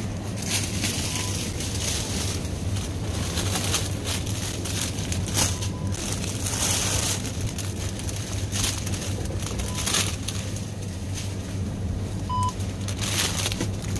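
A handheld supermarket self-scanner beeps four times with short, high single tones as produce is scanned; the last beep is the loudest. Plastic produce bags crinkle and rustle between the beeps, over a steady low hum.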